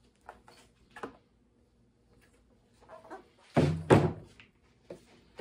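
A heavy 12.8 V 100 Ah LiFePO4 lithium battery is set down onto a table with two heavy thuds close together, the second the loudest, after a few faint clicks.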